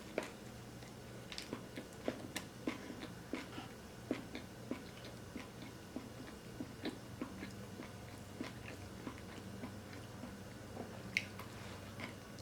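Close-miked chewing of food: irregular soft mouth clicks and small crunches, two or three a second, over a low steady hum.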